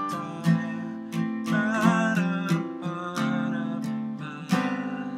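Acoustic guitar strumming chords in the key of C, strokes landing in a rhythmic pattern over ringing chords.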